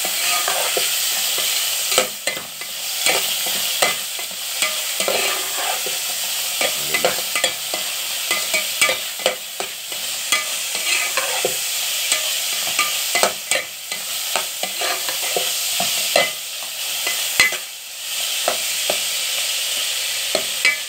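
Chicken pieces sizzling in hot oil in a metal pot as they are sautéed to brown, with a metal spatula scraping and clicking against the pot as it stirs. The sizzle is steady and dips briefly twice, about two seconds in and near the end.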